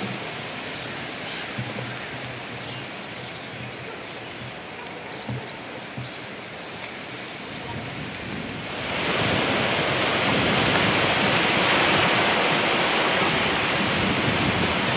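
Steady outdoor noise with a faint high chirp repeating several times a second. About nine seconds in it gives way to a louder, even, hissing splash of water running from a stone village fountain.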